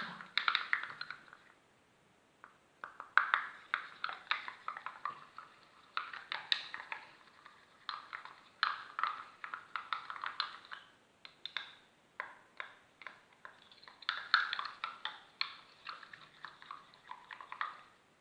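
Liquid soap and toothpaste being stirred with a utensil in a small container: quick clicking and tapping strokes against the container, in spells of one to three seconds with short pauses between.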